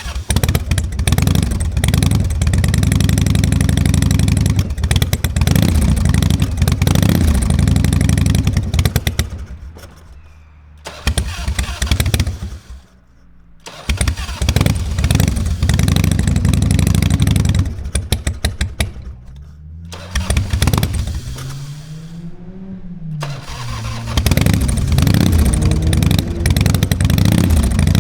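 Harley-Davidson Fat Boy's 1340 Evolution V-twin cranking over on its starter in several long bursts with short pauses between, not catching; the engine seems flooded. Partway through, the sound swoops down and up in pitch once.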